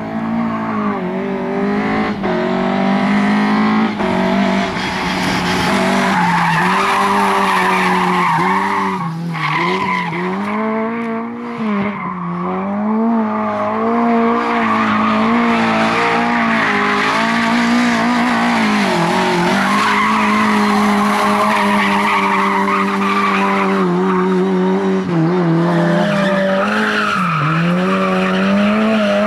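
Lada saloon's four-cylinder engine held at high revs while the car slides, its pitch dipping briefly and climbing again every few seconds. Tyres skid and scrub on concrete underneath.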